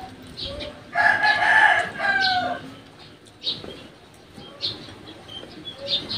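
A rooster crows once, about a second in; the call lasts about a second and a half and falls in pitch at the end. Short, high bird chirps sound on and off around it.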